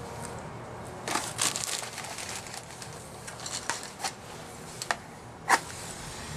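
Crackling and clicking of a matchbox and match being handled, then a single sharp scrape of a match being struck about five and a half seconds in, the loudest sound.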